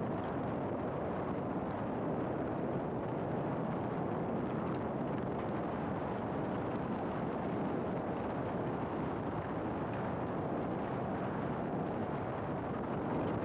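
Steady road noise of a car driving: tyre and wind noise, an even hiss with no changes.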